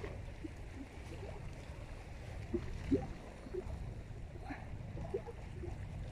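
Lake water lapping and gurgling in short, scattered small plops over a low, steady rumble.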